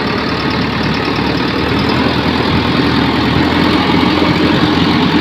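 Diesel engine of a JCB backhoe loader running steadily at close range, growing slightly louder.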